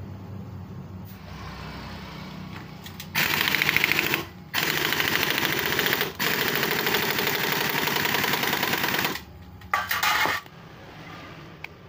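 Impact wrench hammering the magneto flywheel nut tight on a Yamaha F1ZR two-stroke engine, in four rapid rattling bursts, the longest about three seconds and the last a short one near the end.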